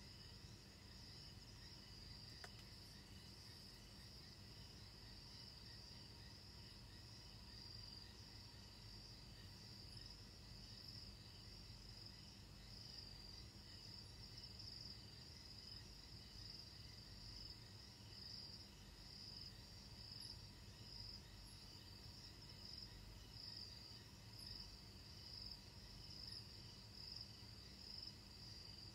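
Crickets trilling faintly and steadily in a high pitch, the trill pulsing in the later part, over a low steady hum.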